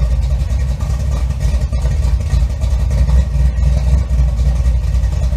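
Car engine running steadily with a heavy low rumble, cutting off suddenly near the end.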